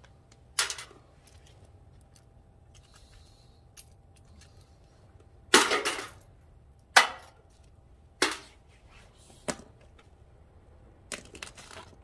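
Sharp clacks and snaps of scrap microwave oven parts being handled, broken apart and set down on concrete: about six separate hits, the loudest a longer crackling snap about halfway through, and a quick cluster near the end.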